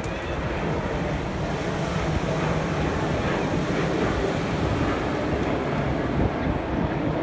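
Surf washing onto a pebble beach, with wind buffeting the microphone in a steady, rumbling noise.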